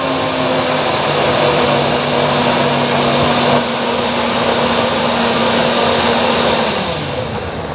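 Countertop blender running, puréeing cooked pumpkin into a smooth cream. The motor holds one steady pitch, then drops as it slows down near the end.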